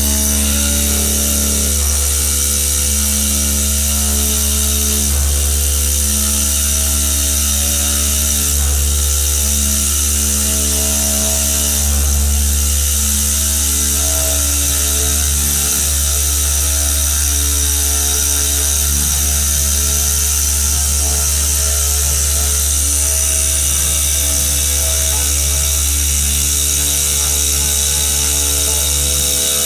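Spindle of a 5-axis CNC router, a 12 kW water-cooled unit, cutting into a granite block under a water coolant spray. It makes a loud, steady whine and grinding with a low hum beneath, unbroken throughout.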